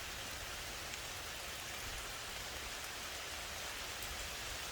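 Steady rain falling on a forest, an even hiss of many drops.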